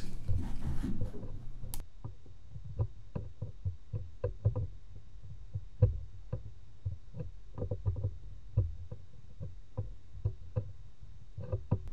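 Faint, irregular small clicks and taps of a soldering iron tip pressing and scraping against a surface-mount capacitor on a laptop motherboard, over a low steady hum.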